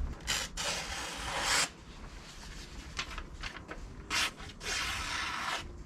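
Knife blade drawn by hand across a wooden strop loaded with white polishing compound, several rubbing strokes of uneven length, two of them long: deburring the edge after sharpening.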